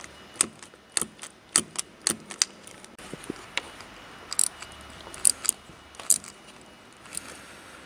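Sharp metallic clicks and clinks of a ratchet wrench and socket tightening the bolts of an EGR valve on a Mercedes M272 engine, irregular, a few a second, bunching together about four to six seconds in.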